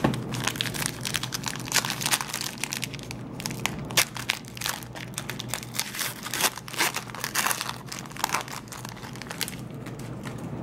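Foil wrapper of a Panini Marquee basketball trading-card pack crinkling and crackling as it is torn open and worked apart by hand, a dense irregular run of crackles.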